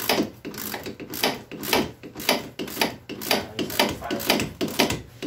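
Socket ratchet on an extension backing out a steering-box mounting bolt, the pawl clicking in a short burst on each back-swing, about two strokes a second.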